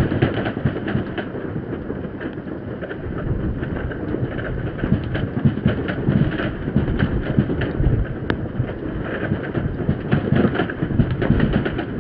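Many fireworks going off across the city at once: a continuous crackle of overlapping pops and bangs, with a sharper crack about eight seconds in.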